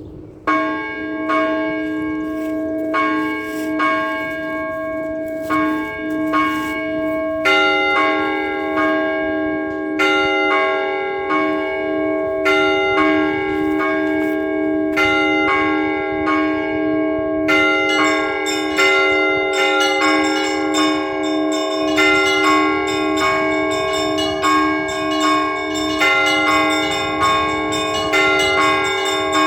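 Orthodox church bells rung by hand in a festive peal, starting about half a second in. A low bell sounds throughout while smaller bells strike in a repeating pattern. More bells join about a quarter of the way in, and past the halfway point small high bells come in with quick, dense strokes.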